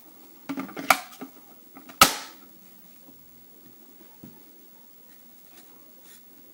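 Hard plastic parts of a cordless angle grinder being handled: a short clatter of small clicks about half a second in, then one sharp, loud click with a brief ring about two seconds in.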